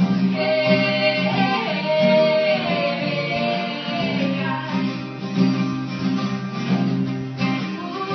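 Live acoustic guitar music, strummed, with some singing.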